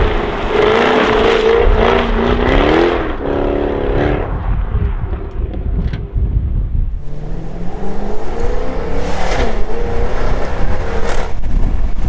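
Jaguar F-Type V8 S's supercharged 5.0-litre V8 revving hard in two spells, the pitch climbing and falling, as the rear wheels spin on a wet road with little grip. There is a quieter stretch between the spells and a sharp crack near the end.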